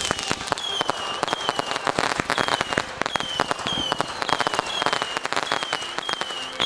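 Fireworks crackling: a dense run of rapid, irregular pops, with a short high falling whistle repeating about every three-quarters of a second.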